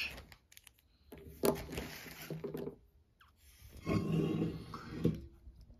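Plastic bag rustling and being handled as a toy action figure is pulled out of it, in two short spells with a few low, muffled grunt-like sounds among them.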